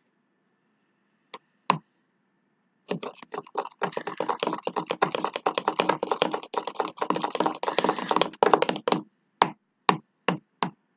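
Sticky homemade slime of shower gel and salt being squeezed and kneaded by hand, making a dense run of rapid wet clicks and pops for several seconds, then a few spaced clicks near the end. The slime is still sticky and clinging to the hand.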